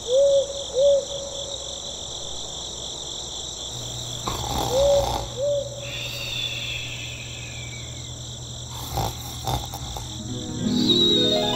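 Night ambience of crickets chirping steadily, with an owl hooting twice near the start and twice again about four seconds in. A low hum comes in partway, two soft knocks follow, and a rising tone swells near the end.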